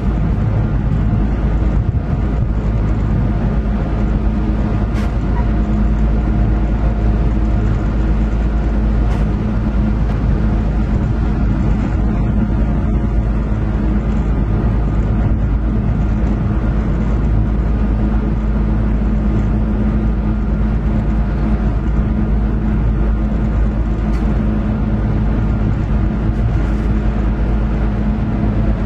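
EMD GP9R locomotive's 16-cylinder two-stroke diesel engine running steadily under way, heard inside the cab, with a few faint clicks.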